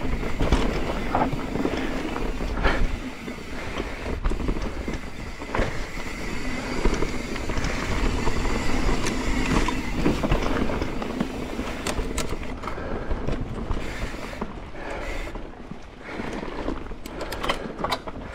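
Mountain bike riding fast down a rough, rocky dirt trail: the tyres rumble over the ground while the chain and frame rattle and knock over the bumps. It eases off and gets quieter in the last few seconds.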